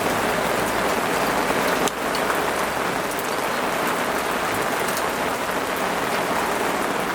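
Steady rain falling: a dense hiss with many small drop ticks scattered through it.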